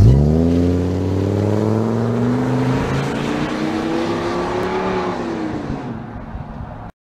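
Ford E-350 Econoline van's V10 engine revving up hard as the van pulls away. The pitch jumps at the start, climbs steadily for about five seconds, then drops and fades with distance before cutting off suddenly near the end.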